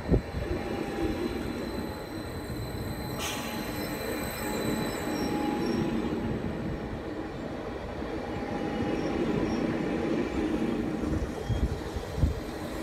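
ODEG Stadler KISS double-deck electric multiple unit pulling out and rolling slowly past: a steady running rumble with a whine of several steady tones from its drive. There is a sharp click about three seconds in, and a low thump near the start and another near the end.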